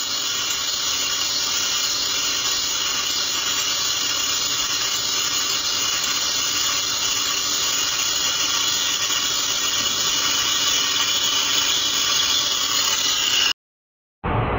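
Lathe machining noise: a steady hissing whir from the turning work and cutting tool, with a faint high tone held throughout. It cuts off abruptly near the end.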